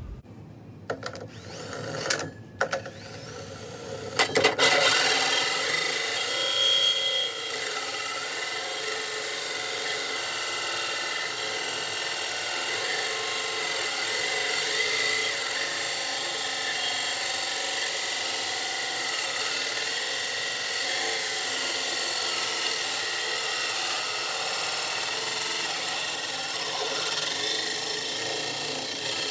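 Power drill turning a 7-inch (178 mm) bi-metal hole saw with M42 high-speed steel teeth. It starts in a few short bursts, then cuts continuously with a steady grinding rasp from about four seconds in.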